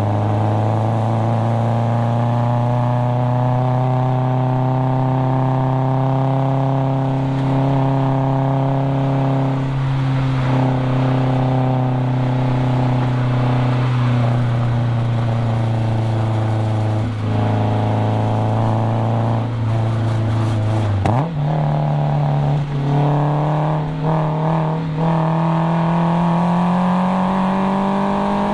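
Nissan KA24DE four-cylinder engine and cat-back exhaust of a 240SX under load on track. The engine holds a nearly steady pitch that sags slowly for about twenty seconds. Then the pitch dips and jumps up sharply, a quick downshift, and the engine climbs steadily in pitch as it accelerates.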